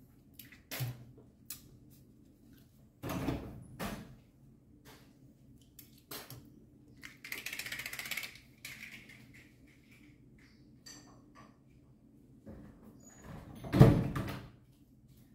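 Scattered knocks and clicks of things being handled in a small room, with a short rustling hiss about halfway through. Near the end comes a loud thump, like a door or cupboard being shut.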